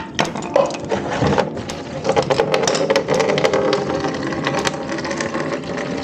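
Green coolant draining from the opened drain bolt on a Yamaha NMAX 155's engine block, the stream splashing into a catch container with many irregular clicks and splatters.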